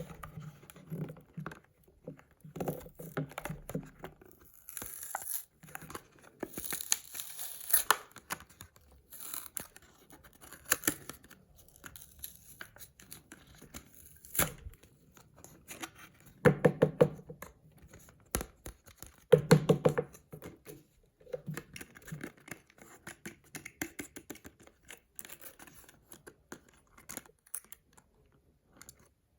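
Toy packaging being torn open and handled, with irregular bursts of tearing and crinkling separated by pauses and small knocks. The loudest are two short rasping tears, one at about 17 seconds and one at about 20 seconds.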